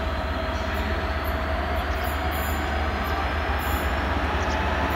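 Class 66 diesel freight locomotive hauling a train of wagons slowly past, its engine running steadily with a low rumble that grows a little louder toward the end.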